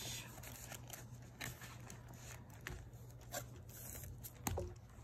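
Paper bills and cash envelopes being handled: soft rustling and crinkling with scattered light clicks and taps.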